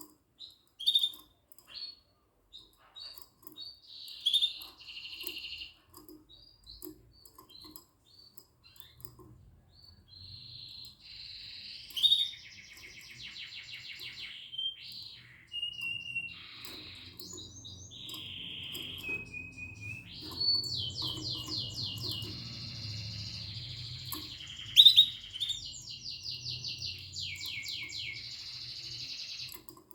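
Yellow mosaic canary singing: varied phrases of chirps, fast trills and short held whistles. A faint low hum runs underneath from about nine seconds in.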